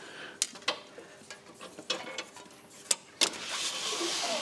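Light clicks and knocks of a flexible curtain strip and hands against the steel column of a two-column car lift, then from about three seconds in a steady scraping as the strip is pushed down through the narrow gap in the column's shuttle.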